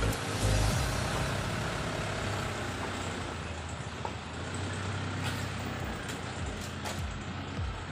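Steady rumble of a motor vehicle's engine, with a few faint clicks near the end.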